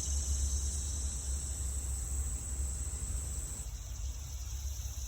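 Insects trilling in one steady high-pitched tone, thinning a little past halfway, over a low steady rumble.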